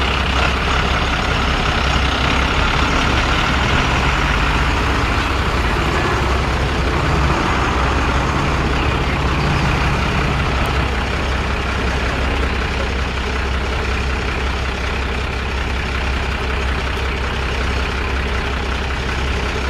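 Heavy truck engine running steadily with a constant deep hum, as an articulated lorry drives slowly past.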